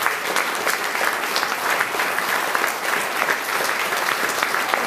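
Audience applauding steadily: many hands clapping at once, with no let-up.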